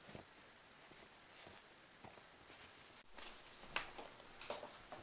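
Faint soft rustling and scuffing as a Siberian husky noses and pushes at a fleece blanket on a couch, trying to bury her bone. One sharp click a little before four seconds in.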